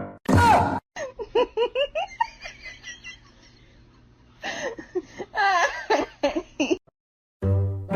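High-pitched giggling laughter in two bouts of quick rising-and-falling bursts, after a short loud cry at the start.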